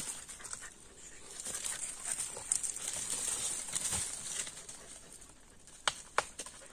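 Hunting dog sniffing and panting while it works the scent through brush, with a couple of sharp clicks near the end.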